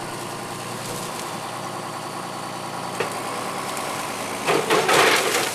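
John Deere loader tractor's diesel engine running steadily, with a louder, rougher stretch about four and a half seconds in.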